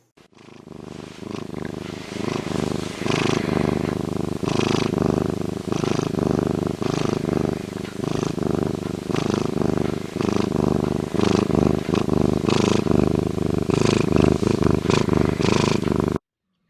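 An animal's low, pulsing vocal sound, made of many rapid strokes with louder surges about once a second, cutting off suddenly near the end.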